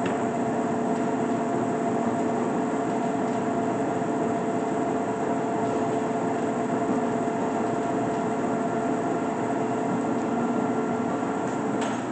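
1981 LeBlond Regal 24-inch sliding gap bed lathe running under power, its spindle set at 126 RPM, giving a steady hum with several steady tones from the headstock gearing. There is a short click near the end.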